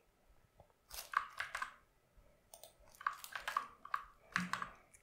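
Computer keyboard keys and mouse clicking faintly in three quick bursts of clicks, as text is copied and pasted into a line of code.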